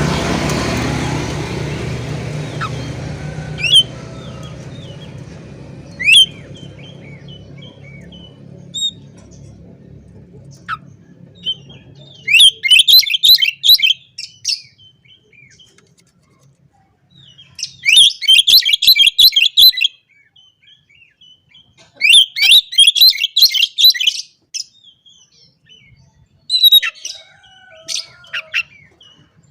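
Oriental magpie-robin (kacer) singing: after two single rising whistles, four bursts of rapid, varied, high chattering phrases, each about two seconds long, with short pauses between. A broad hiss and hum fades away over the first ten seconds or so.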